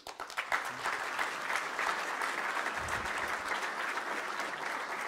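Audience applauding, starting suddenly and building within the first half second, then clapping steadily.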